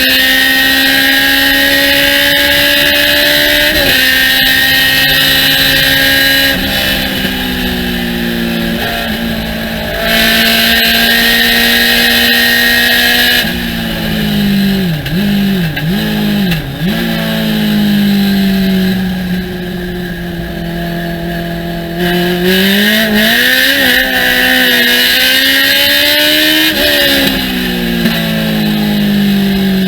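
Thunder Roadster race car engine at racing speed: the pitch climbs under full throttle, drops at an upshift about 4 s in, and falls away on lifts for corners. Quick throttle blips on downshifting come around the middle, followed by the engine pulling hard again near the end.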